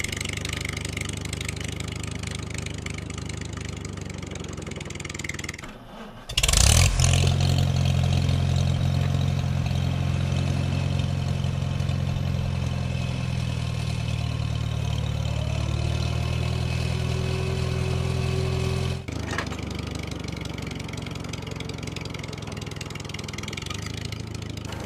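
Engine sound running steadily, dubbed over the unpowered toy tractors. About six seconds in it breaks off briefly and comes back much louder with a burst like a start-up, holds steady, then drops back to the quieter level near the end.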